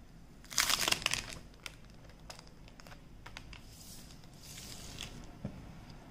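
Plastic shrink-wrap being torn and pulled off a smartphone box, crinkling: a loud burst of crackling about half a second in, then scattered crackles and a softer rustle near the end.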